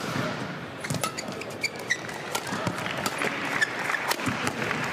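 A badminton rally: rackets strike the shuttlecock with sharp hits at irregular intervals, while shoes squeak briefly on the court floor over a steady crowd murmur.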